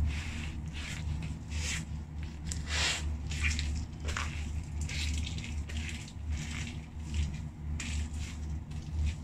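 Rubber lug soles of leather loafers treading on french fries on a tile floor, crushing and squishing them in irregular soft crunches, over a steady low hum.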